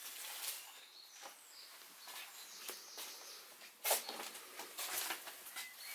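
Irregular crunching and knocking footsteps over debris, the loudest about four seconds in, with a few short bird chirps in the background.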